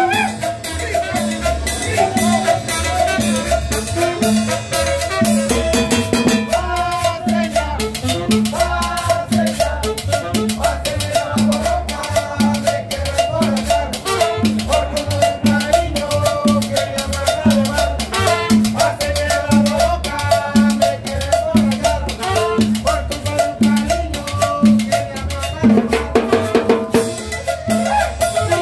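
Live tropical dance band playing salsa-style music: upright bass and hand drums keep a steady beat under a horn melody, with cymbal.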